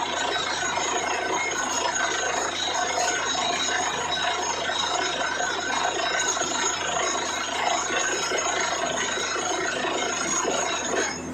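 Truck-mounted borewell drilling rig running and drilling, with its air compressor: a steady loud rush with several high metallic ringing tones over it. Near the end the ringing and hiss drop away, leaving a lower engine hum.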